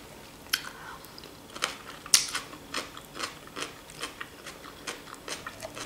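Close-up eating sounds: chewing a mouthful of fresh vegetable salad, a run of irregular small wet clicks and crunches, with a metal fork picking through the salad on the plate.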